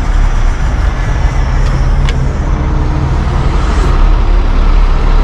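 Heavy-duty wrecker's diesel engine idling, a steady low rumble heard up close, with one sharp click about two seconds in.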